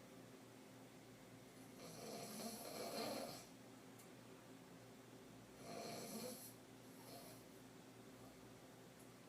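A woman snoring in deep sleep on her back with her mouth open: two deep throat snores, a longer one about two seconds in and a shorter one about six seconds in.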